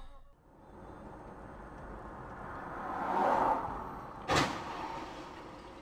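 Road and traffic noise on a dashcam swelling over a few seconds and fading, then a single sharp bang of a car collision about four seconds in.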